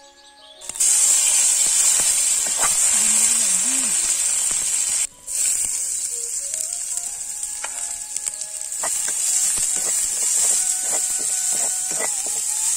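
Chopped onion frying in hot oil in a large metal wok over a wood fire: a loud, steady sizzle starts about a second in, breaks off briefly about five seconds in, and carries on. Light clicks and knocks from a wooden spoon stirring come near the end.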